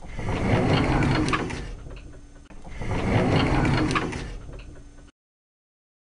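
A rattling mechanical sound played twice, each time for about two and a half seconds, swelling quickly and then fading before it cuts off.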